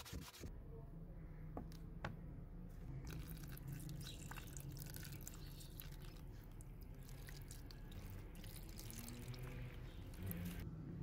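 Liquid poured in a thin, steady stream into a plastic tub already holding liquid, splashing and trickling with a few small clicks. A brief sandpaper rub on the metal pliers is heard for the first half second.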